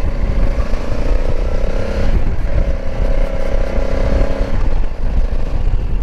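Motorcycle engine running under way, with a heavy low rumble of wind noise. The engine note breaks off briefly about two seconds in, comes back, and falls away again about four and a half seconds in.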